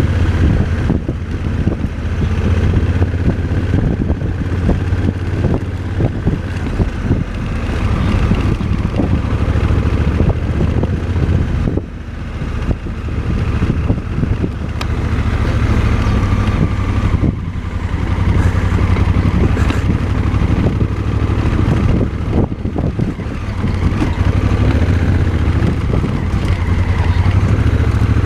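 Motorcycle engine running steadily under way, with wind noise on the microphone and short rattles and knocks throughout.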